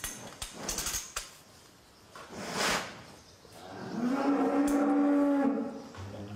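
Holstein cow in labour mooing once, a long steady low about four seconds in, while the calf is being pulled with a calving jack. A few sharp clicks and a short hiss come before it.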